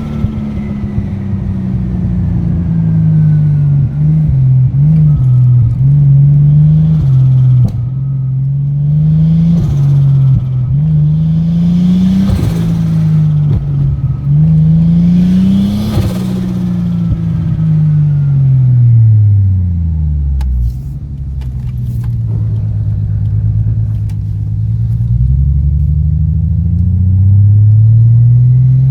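Toyota Supra's turbocharged straight-six engine through an HKS straight-through performance exhaust, accelerating through the gears: the engine note climbs in several pulls with a drop at each gear change, then falls away steadily as the car slows, and climbs again near the end. The engine has a misfire on one cylinder, which the owner suspects is a blocked injector.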